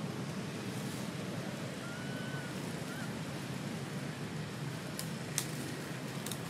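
Steady low outdoor background rush, with a few faint short high chirps a couple of seconds in and several sharp clicks near the end.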